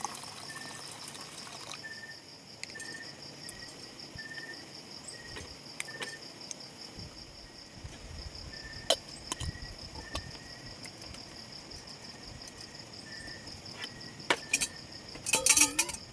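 Insects trilling in a steady, fast-pulsing high chorus, with a second, lower short chirp repeated about once a second. Scattered sharp clicks, and a brief clatter near the end.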